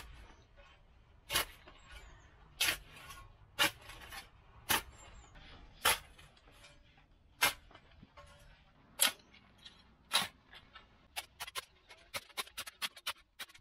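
Metal spade blade striking and chopping into garden soil as a bed is dug over, sharp strikes about once a second, then a quicker run of lighter strikes near the end.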